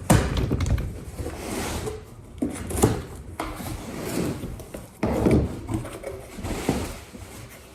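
Knife cutting through packing tape and cardboard on a shipping box, with the cardboard scraping and rubbing as the flaps are worked open, and a few sharp knocks.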